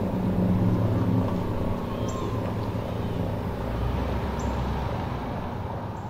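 Street traffic: a motor vehicle's engine running close by, a low rumble and hum that eases off after about a second and a half, with a deeper rumble again near the end.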